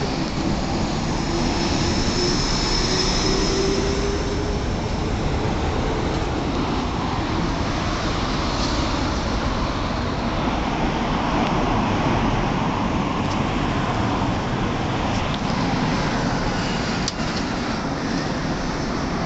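Steady street traffic noise, a continuous rumble and hiss, with a falling hum of a vehicle going by in the first few seconds. A few faint clicks come in the later part.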